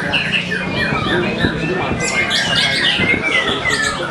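Many caged songbirds singing at once in a contest, a white-rumped shama (murai batu) among them: a dense mix of overlapping whistles, quick trills and falling notes.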